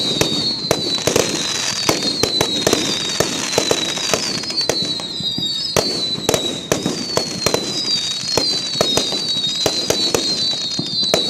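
Fireworks going off in rapid, irregular bangs and pops, with a run of short whistles that fall slightly in pitch as shells go up.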